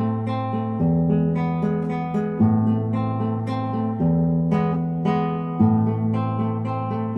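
Background music: strummed acoustic guitar playing a steady chord progression, the chords changing about every second and a half.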